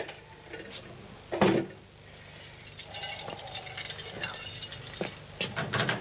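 A key rattling and turning in an old door lock: a run of fast, scratchy metallic clicks and grinding as the first of several locks is worked open. It comes after a single sharp knock about a second and a half in.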